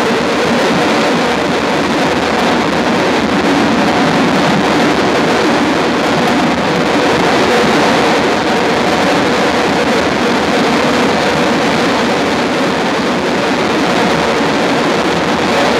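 A loud, steady wall of electronic noise from synthesizers and keyboards played through an amplifier, with faint held tones under the noise and little change from moment to moment.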